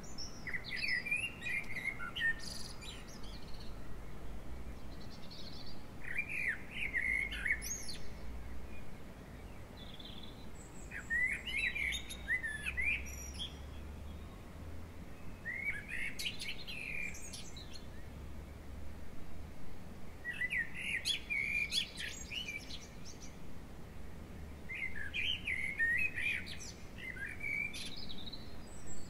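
Dawn chorus recording: songbirds singing in short, quick phrases that come about every four to five seconds, over a faint low rumble.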